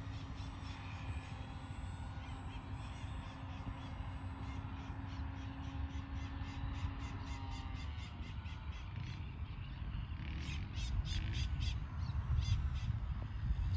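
Wind rumbling on the microphone under the faint steady drone of a distant F3A aerobatic model plane's motor, which dies away about two-thirds of the way through. A bird gives runs of harsh, rapid calls, loudest in the last few seconds.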